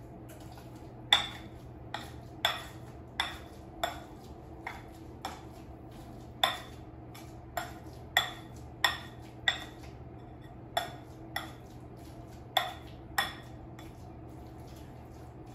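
Metal potato masher working mashed carrots in a glass bowl, clinking against the bowl in irregular strikes about one or two a second, each with a brief ring.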